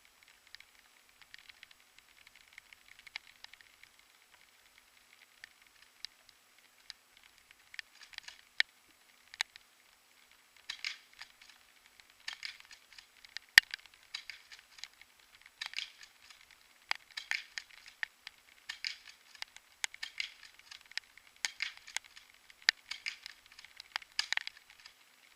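Faint crinkling, crackling rustle with scattered sharp clicks, coming in clusters about every second and a half from about ten seconds in, with one sharp click near the middle the loudest.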